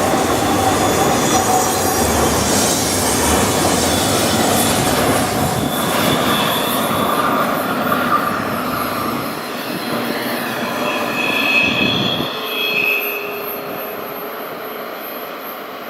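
Double-stack intermodal freight cars rolling past on the rails, with high-pitched wheel squeal about two-thirds of the way through. The noise fades over the last few seconds as the train moves away.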